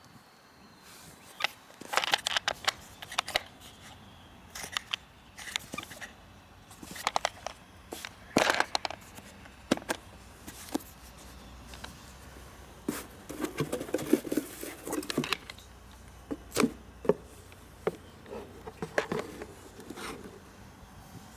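A grey hard-shell plastic carrying case being handled and opened: its plastic latches are prised up with irregular sharp clicks and snaps, and there is a busier stretch of plastic knocking and rubbing a little past the middle.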